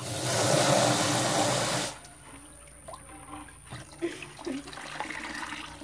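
Water poured from a plastic basin splashing loudly into a steel pot of cooked macaroni for about two seconds, then stopping abruptly; the macaroni is being rinsed. Only faint small sounds follow.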